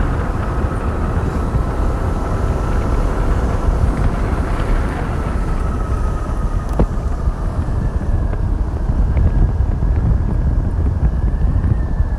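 Wind rumbling on the microphone of a vehicle moving along a road, with a faint steady whine from its motor that drifts slowly in pitch; a single click sounds about seven seconds in.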